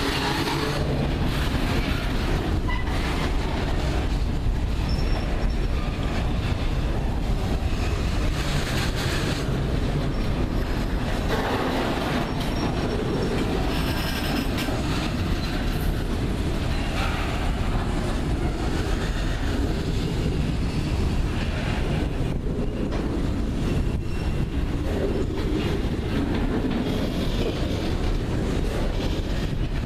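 Ferromex freight train cars rolling past in a steady rumble, wheels clacking over the rails, with brief high wheel squeals now and then.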